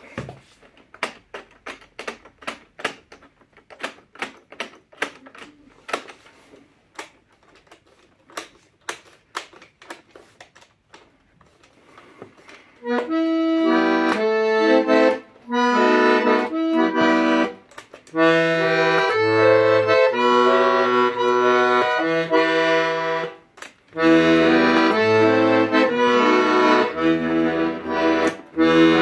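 Hohner Organola piano accordion: for about thirteen seconds only sharp, irregular clicks as the instrument is handled. Then it plays loud held chords, with bass notes entering a few seconds later and brief breaks between phrases.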